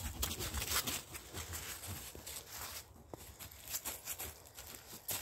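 Footsteps crunching on a woodland path: irregular steps and rustles, several a second.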